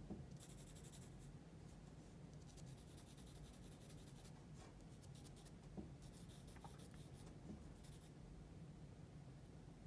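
Graphite pencil sketching lightly on drawing paper: faint scratchy strokes in several short runs, over a low steady hum.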